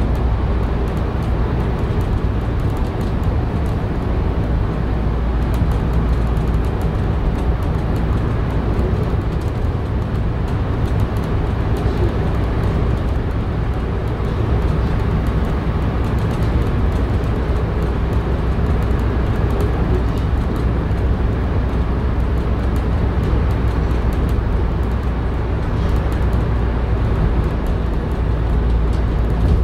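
A Volvo B5LH hybrid double-decker bus cruising steadily through a road tunnel, heard from inside: a constant low drivetrain and road rumble with tyre noise.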